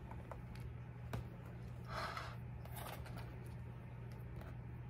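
Faint rustling and a few light taps as slices of pepper jack cheese are torn into strips by hand and dropped into a glass casserole dish, over a steady low hum.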